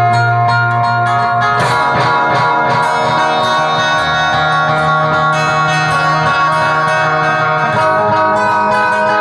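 Instrumental music: guitar notes plucked in quick succession over sustained low tones, the low note changing about a second and a half in and again near the end.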